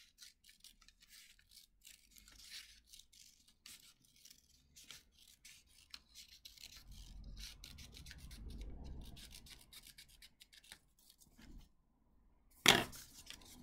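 Scissors cutting a strip of paper: a run of short, crisp snips, with a duller rubbing of paper being handled for a few seconds midway. A single sharp knock near the end is the loudest sound.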